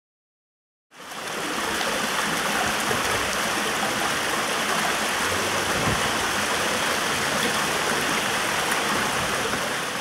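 Water pouring off a stacked-rock waterfall into a swimming pool, a steady rushing splash that starts about a second in.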